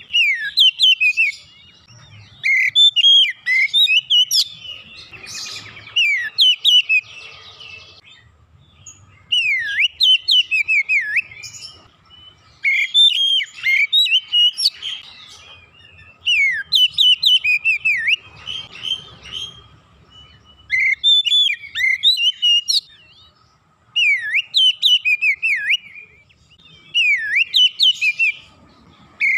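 Oriental magpie-robin singing: phrases of loud, varied whistled notes that sweep up and down, repeated one after another with short pauses between them.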